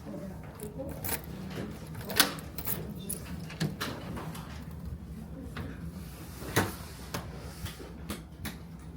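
Clicks and knocks of ferry cabin fittings being handled, with sharper knocks about two seconds in and again past six seconds, over a steady low hum.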